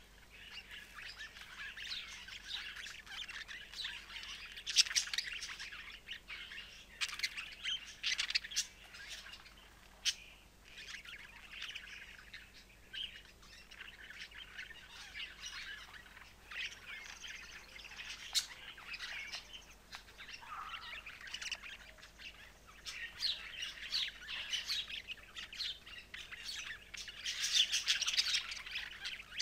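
Budgerigars warbling: a continuous chatter of chirps, clicks and short squawks, louder near the end.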